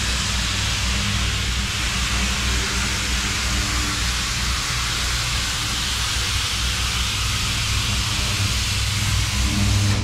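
Steady hiss with a low hum underneath: constant background noise of an industrial workshop.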